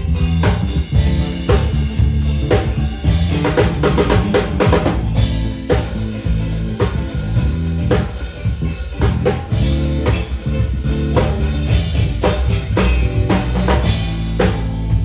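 Drum kit playing live with bass drum and snare hits, over sustained low notes, during a band's sound check.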